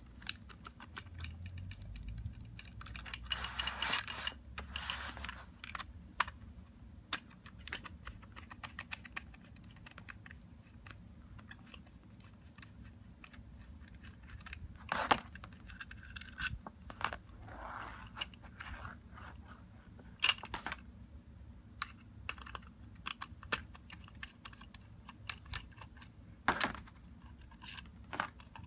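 Irregular small clicks and taps from a T10 Torx screwdriver working screws out of the cover plate of a 9 mm Glock 50-round drum magazine, with the drum being handled. A few louder knocks are spread through.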